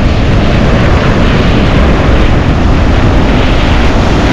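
Ocean surf breaking and washing in, a loud steady rush with a heavy low rumble.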